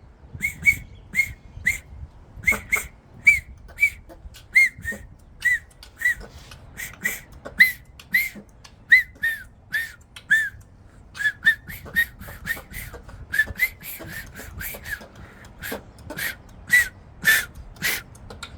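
Short, breathy whistle chirps repeated about twice a second with uneven gaps, each a quick rise and fall in pitch, like someone practising finger whistling.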